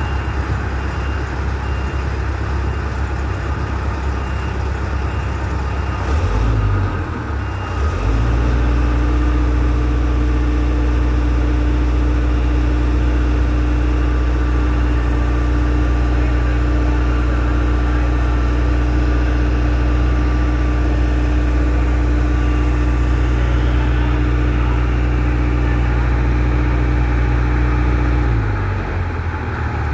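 A large engine running at a steady speed, with a low, even hum. Its sound shifts about six seconds in, settles into a steadier, stronger drone about two seconds later, and eases back near the end.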